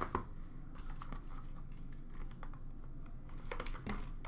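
Hockey cards and packs handled in a plastic bin: a few light, scattered clicks and taps, over a low steady hum.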